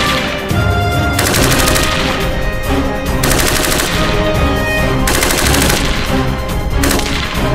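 Several short bursts of automatic fire from an AR-RPK light machine gun, with music playing under them.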